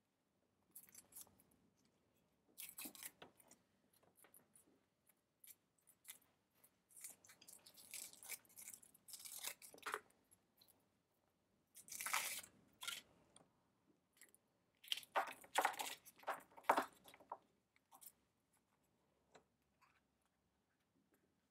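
Foil wrapper crinkling and tearing as it is peeled off a Kinder Surprise egg, and the thin hollow chocolate shell cracking apart, in scattered bursts of crackling.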